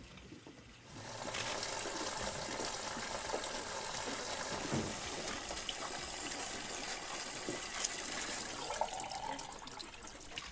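Steady rush of running water, starting suddenly about a second in.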